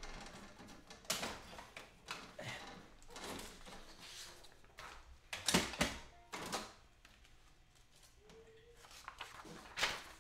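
Rustling and scattered knocks of things being moved about while a piece of paper is fetched. The loudest clatter comes about halfway through, with another sharp knock near the end.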